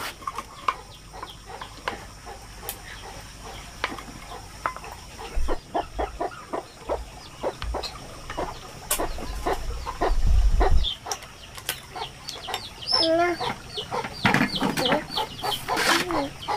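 Chickens clucking, with a run of short calls in the last few seconds. Many scattered clicks and knocks, and a low rumble in the middle.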